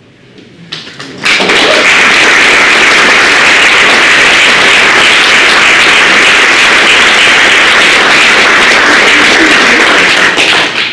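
Audience applauding: a few first claps, then loud, steady applause from about a second in that dies away near the end.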